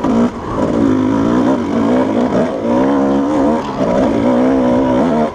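Dirt bike engine revving up and down over and over as the throttle is worked.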